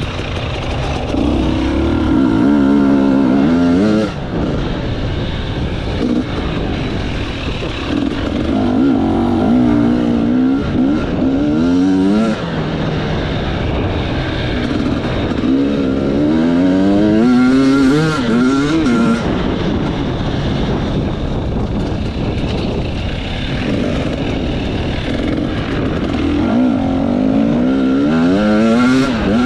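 Enduro motorcycle engine under hard throttle, its revs repeatedly climbing, wavering and dropping away several times as the rider works the throttle, over a steady rush of wind and riding noise.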